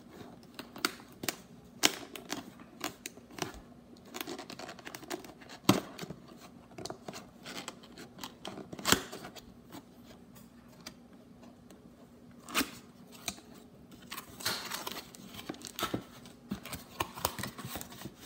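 Packaging being handled and opened: irregular clicks, scrapes and short crinkling, rustling bursts of cardboard and plastic, over a faint steady hum.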